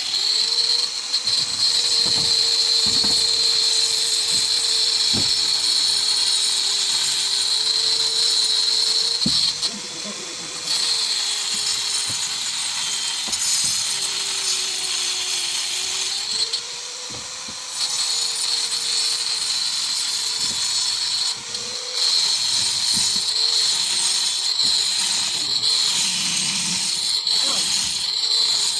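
A power tool cutting or drilling into a concrete hollow-block wall for electrical wiring, running loud and steady with its motor pitch wavering under load. It eases off twice, about ten and seventeen seconds in.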